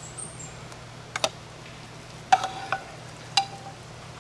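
A metal utensil knocking against a cooking pot four times, each knock ringing briefly, as fried mushrooms are stirred into the boiling mushroom soup.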